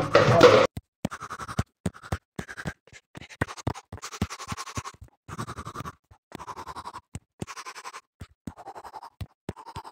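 A loud burst cuts off within the first second. It is followed by repeated short bursts of scratching noise, each under a second long, with sharp clicks between them and abrupt gaps of silence.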